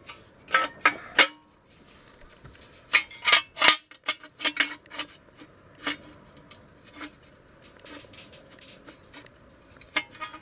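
Metal parts and hand tools clinking and clattering during ATV engine reassembly: a few sharp clinks early on, a louder cluster of clanks about three to four seconds in, then scattered lighter clicks.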